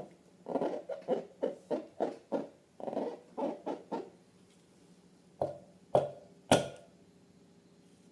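Slime squelching as it is squeezed and worked: a quick run of soft wet pops, about three a second, then three sharper, louder snaps about a second apart, the last the loudest.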